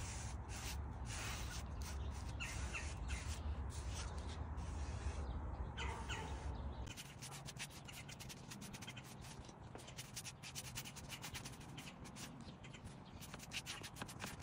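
Paintbrush bristles rubbing along a freshly painted wooden baseboard in short, repeated strokes. Birds call faintly in the background a few times.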